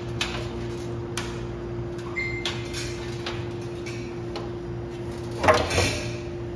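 Scattered clicks and knocks of parts and tools being handled while a refrigerator fan motor is removed, with a louder clatter about five and a half seconds in, over a steady hum.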